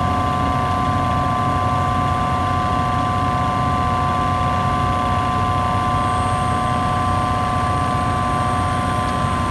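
Rainman portable reverse-osmosis watermaker running, its electric motor and high-pressure pump giving a steady hum with two steady high tones over a low rumble. The pressure valve is slowly being turned to bring the unit up toward its working pressure of about 55 bar.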